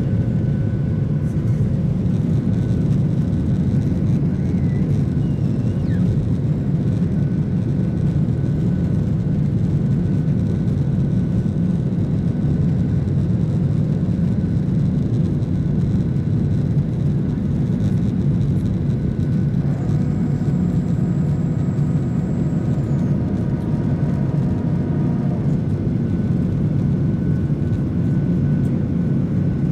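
Cabin noise inside a Boeing 737-800 climbing after takeoff: the steady roar of its CFM56 turbofan engines and rushing air heard over the wing, with a faint steady whine running through it. About twenty seconds in, a cluster of faint steady tones joins for a few seconds.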